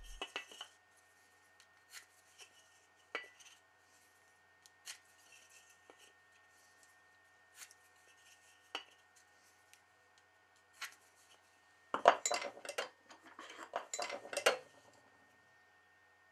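Scattered light clicks and taps of a metal center-finding square being set and turned against a square wooden blank, then, about twelve seconds in, a couple of seconds of quick scratchy strokes as the centre-marking lines are drawn across the end grain.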